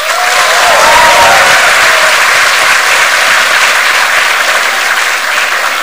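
Large auditorium audience applauding. The clapping starts abruptly, is loudest about a second in, then slowly dies away.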